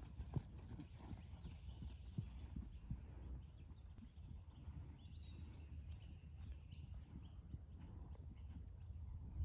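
Horse cantering on a soft sand arena: dull, irregular hoofbeats.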